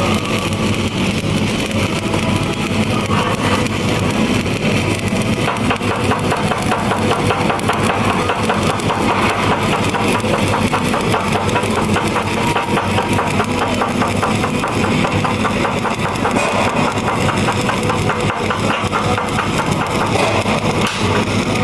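Stick welding with a 7018 rod: the arc crackles and sizzles steadily as the cap pass is run, over a steady low hum.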